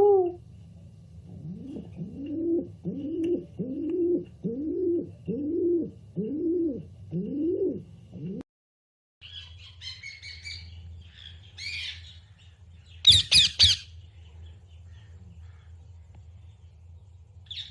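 Recorded bird calls. First comes a steady run of low, arching calls, about three every two seconds, that cuts off abruptly. After a short silence come higher, harsh chattering calls, typical of guinea fowl, with a loud burst of squawks around the middle.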